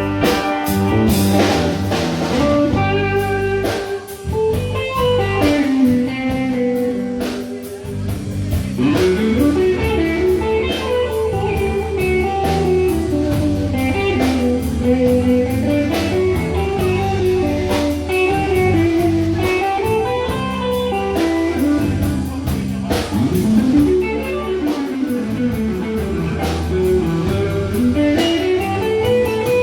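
Instrumental break in a live band performance: a lead guitar plays a weaving melody over strummed rhythm guitar and a steady drum beat, with no singing.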